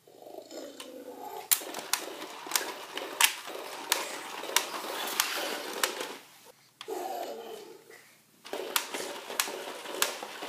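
Battery-powered Imaginext Mega Apatosaurus toy walking: its geared motor runs with a regular sharp click about every two-thirds of a second. It drops out briefly twice after about six seconds.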